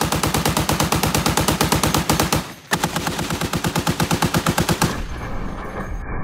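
Tank-mounted heavy machine gun firing long bursts of about ten shots a second, with a brief pause about two and a half seconds in. The shots sound duller near the end.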